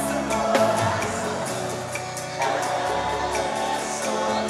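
Live sertanejo band playing a song on stage, with guitars, keyboard and drums under a sung vocal.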